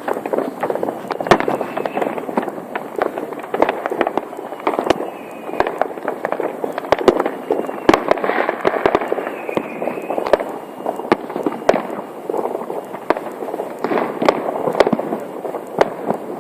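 A dense fireworks barrage: rapid, overlapping sharp bangs and crackling with no let-up, with a faint whistle rising above them now and then.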